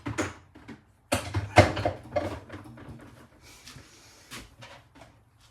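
Metal parts of a British Seagull outboard motor being handled and set down on a workbench: a series of clattering knocks and scrapes, loudest between about one and two and a half seconds in, then lighter clicks.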